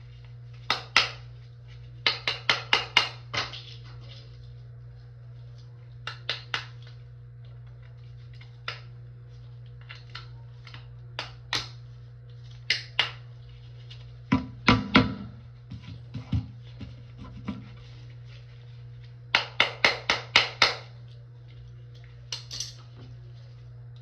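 Sharp knocks or taps coming in quick clusters of three to six, with a heavier pair of thumps about halfway through, over a steady low hum.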